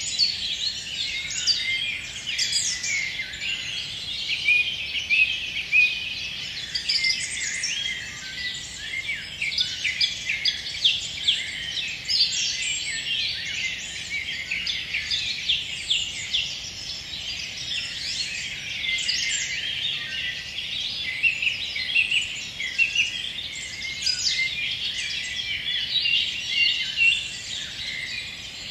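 A chorus of forest songbirds singing at dusk, many short chirps, trills and whistles overlapping without a break.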